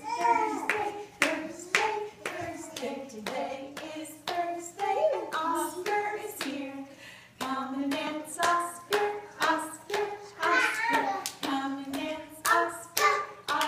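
A woman singing a simple children's song with hand claps keeping a steady beat, about two claps a second.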